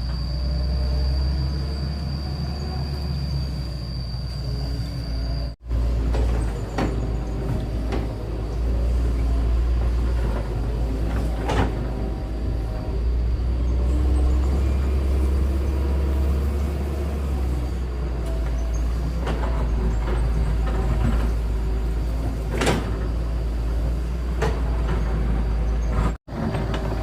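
Excavator's diesel engine running steadily with a deep rumble, with a few sharp metal knocks from the working machine. The sound drops out abruptly for an instant twice.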